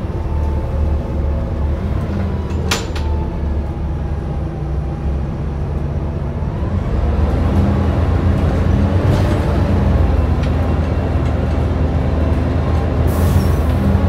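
Volvo B7TL double-decker bus driving, heard from inside: a steady low engine drone with drivetrain whine that grows a little louder about halfway through. A single sharp click comes a few seconds in, and a short hiss near the end.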